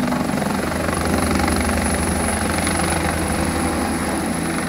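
Simrik Air AS350 B3 helicopter hovering and climbing with a sling load line hanging beneath it, its main rotor giving a fast, steady beat.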